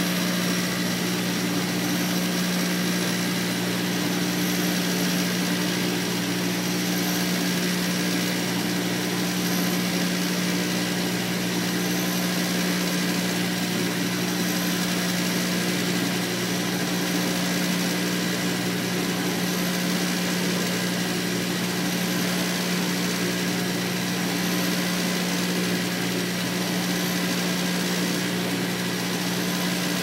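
Heat pump running in cooling mode: a steady low hum from the compressor over an even rush of air from the fan, unchanging throughout.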